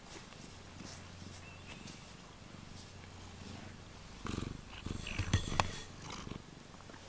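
Cat purring steadily while being stroked. From about four seconds in, louder rubbing and brushing noises as a cat's face and fur press against the microphone.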